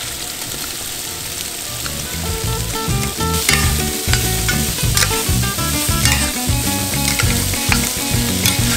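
Diced onion, celery, carrot and red bell pepper sizzling in hot oil and rendered kielbasa fat in an enamelled Dutch oven as they are tipped in and stirred with a spoon. Background music comes in about two seconds in and plays over the sizzle.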